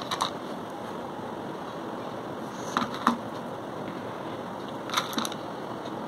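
Small plastic clicks and taps from handling tiny fairy-light bulbs, coming in three pairs a few seconds apart, over a steady background hiss.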